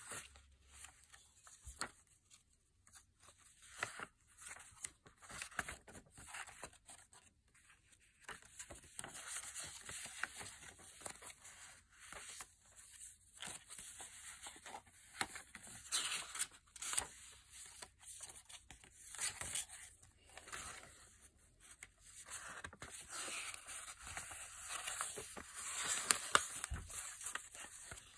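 Pages of a junk journal made from an altered Reader's Digest, old book paper and glossy magazine inserts, being turned and handled by hand: irregular, soft paper rustling and crinkling.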